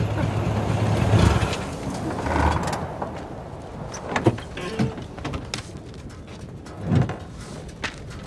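Car engine running with a low hum that stops about a second and a half in. Then scattered clicks, a short creak and a thud as the car door is opened and a foot steps onto gravel.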